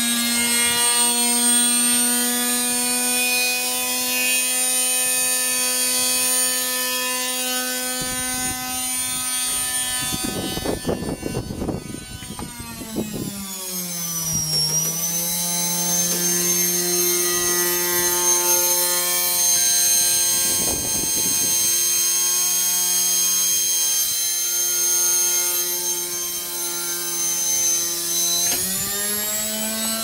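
Hotpoint washing machine's universal brush motor, powered directly through a variac, running at high speed and spinning the tub: a steady whine with many overtones. About midway the pitch slides down to a lower steady whine, and it rises back again near the end. Two short bursts of rough, scraping noise break in, one around the middle and one later.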